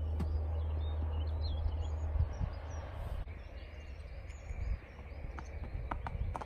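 Small birds chirping and twittering, over a low wind rumble on the microphone that fades after about two seconds. Near the end come a few hoof clops of a Shire horse walking on a paved lane.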